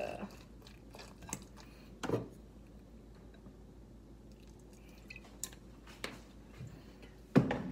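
A utensil clinking and scraping against a ceramic bowl as a salad is stirred, a few separate knocks with quiet stretches between, and one louder knock near the end.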